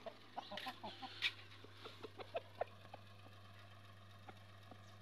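Rooster clucking softly in a few short, quiet calls during the first couple of seconds, then going faint.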